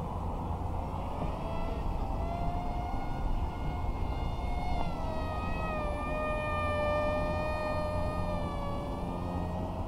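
Electric motor and Gemfan Hurricane 3018 propeller of a small RC model F-22 whining overhead. Its pitch shifts up and down with the throttle, then holds fairly steady in the second half. Wind rumbles on the microphone underneath.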